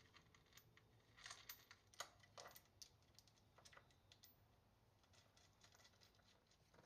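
Near silence with a handful of faint light clicks between about one and three seconds in, from a belt idler pulley and its bolt being fitted by hand onto a tensioner bracket on the engine's front cover.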